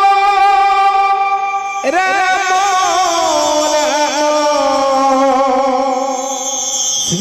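Singing with instrumental accompaniment: a long held note, then a new phrase about two seconds in that wavers and slides gradually lower.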